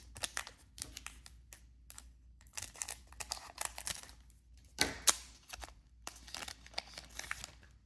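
Trading cards being handled and flicked through, a run of irregular crisp clicks and rustles, with two louder snaps about five seconds in.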